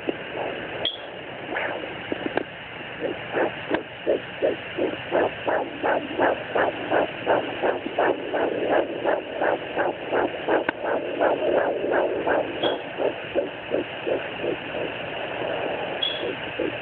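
Fetal heartbeat through a handheld fetal Doppler's speaker: rapid, regular whooshing pulses about three a second, a normal fast fetal heart rate at 10 weeks. For the first few seconds the pulses are broken up by irregular swishes and crackle, then they settle into an even rhythm from about five seconds in.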